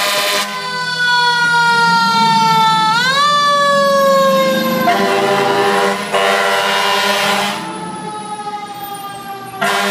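Fire engine siren on a responding engine: the wail slowly winds down, is quickly brought back up about three seconds in, then slowly falls again, in the manner of a mechanical siren. Steady horn blasts come in between, near the middle and at the very end.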